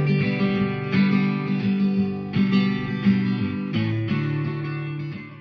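Guitar strumming chords in an instrumental break of a folk-style song, with no singing.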